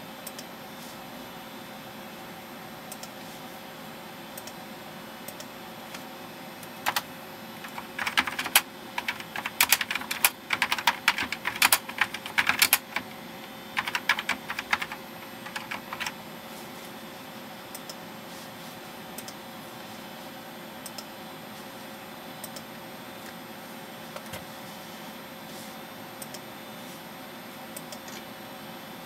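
Typing on a computer keyboard: two runs of quick keystrokes, starting about seven seconds in and lasting some nine seconds, over a steady machine hum. A few faint isolated clicks come before and after.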